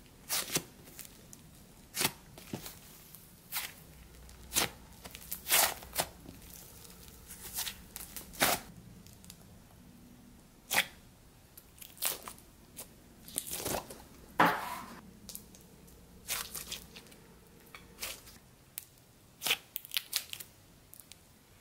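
Inflated, air-filled slime being poked and squeezed by fingers, giving sharp irregular pops and clicks as trapped air bubbles are pressed out. There is roughly one pop a second, with a longer crackly burst about two-thirds of the way through.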